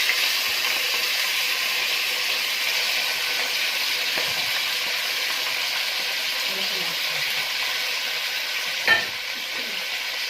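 Pieces of meat sizzling steadily as they sear in hot ghee in a pot on the stove. One sharp knock about nine seconds in.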